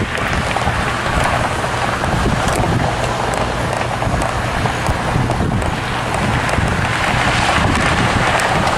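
A China Airlines widebody jet airliner's engines at takeoff thrust during its takeoff roll, heard from off the airfield as a loud, steady, even rushing rumble.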